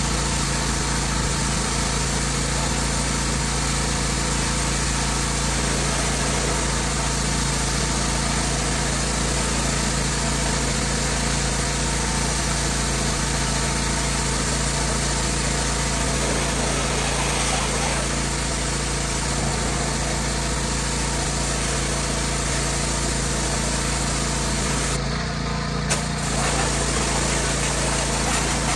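Gas-engine pressure washer running steadily under load, with the hiss of the high-pressure water spray striking vinyl siding. The high hiss drops out for about a second near the end.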